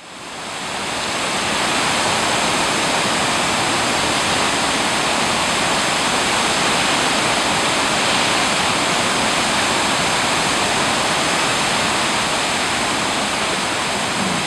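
Cumberland Falls, a large waterfall, rushing steadily: a dense, loud, unbroken roar of falling water that fades in over the first second or two.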